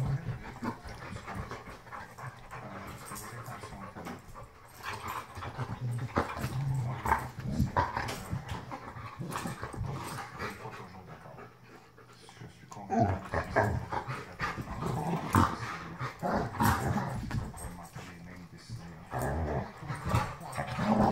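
Two dogs play-fighting at close range, growling in bouts, with a lull about halfway through.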